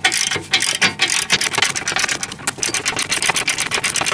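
Socket ratchet wrench clicking rapidly as it backs a nylock nut off a trailing arm bolt: a fast, even run of pawl clicks.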